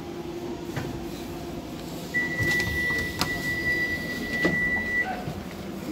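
Docklands Light Railway train door tone: one steady high beep lasting about three seconds, starting about two seconds in, as the sliding passenger doors open, with a couple of clicks from the door mechanism.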